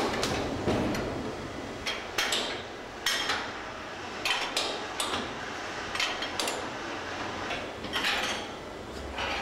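Metal clamps and frame of a steel rotational-moulding boat mould clanking and clicking as they are handled. The clanks come irregularly, a dozen or more, sometimes two or three close together.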